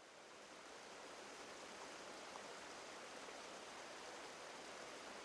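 Flowing river water: a faint, steady rushing that fades in over the first second.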